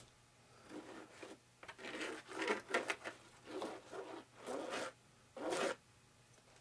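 A run of about ten short, irregular scraping strokes: a thin wooden stick scraping and spreading mixed epoxy, worked from a small plastic cup.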